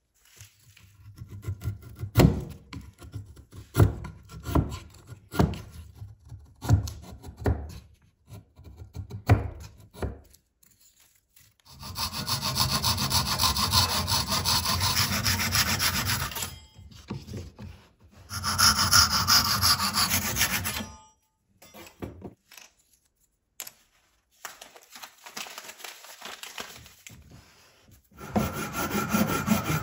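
A series of sharp knocks, about one a second, as a block of wood is split for wedge stock. Then a hand saw cuts through small pieces of wood in runs of quick strokes lasting a few seconds each, stopping and starting again.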